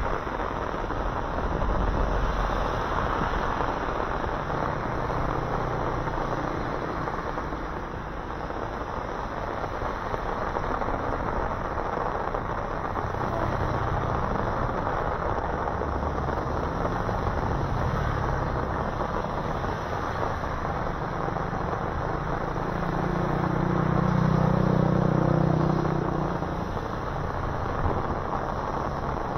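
Traffic passing on a rain-soaked road in heavy rain: a steady wash of rain and tyre hiss on wet asphalt. A vehicle's engine hum swells about three quarters of the way through, the loudest moment.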